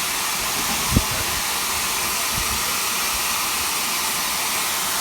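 Steam locomotive blowing off at its safety valves: a steady, loud hiss of escaping steam, the sign that the boiler is at full pressure. A single low thump comes about a second in.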